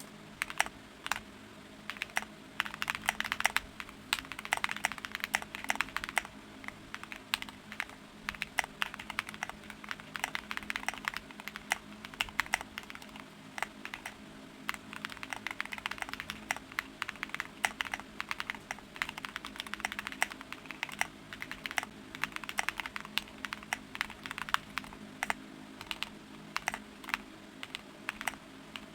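Typing on a Qwertykeys QK75 aluminium-cased mechanical keyboard in its all-stock build: runs of rapid keystrokes alternating with slower, spaced single presses.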